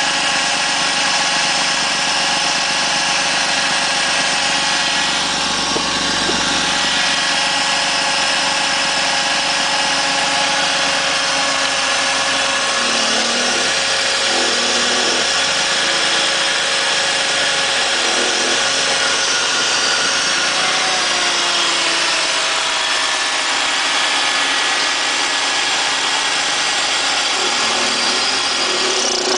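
BMW running steadily and making an odd noise: a constant mix of high whining tones and hiss over the engine, with a few wavering lower tones about halfway through.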